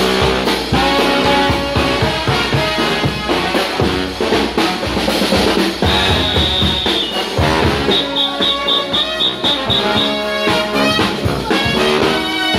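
Brass band playing a street parade tune: trombones and trumpets over bass drum with cymbal and snare drum. About six seconds in a shrill high note is held for about a second, and soon after comes a quick string of short high notes, about four a second.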